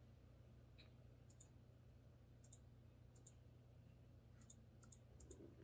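Near silence: a faint steady hum with a few faint clicks in small groups, from a pen drawing on notebook paper.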